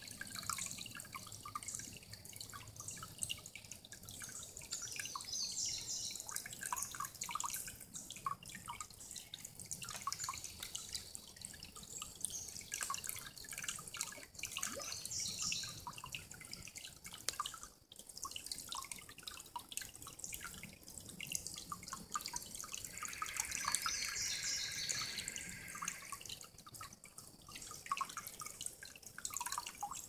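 Shallow creek water trickling and dripping among stones in a low, rocky streambed, a steady patter of small drips. Birds sing a few short phrases over it, near the start, midway and late on.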